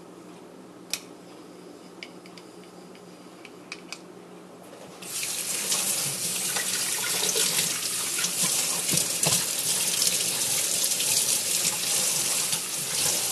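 A few light clicks, then about five seconds in a tap is turned on and water runs and splashes steadily until near the end: the synthetic whetstone being rinsed under the tap between sharpening steps.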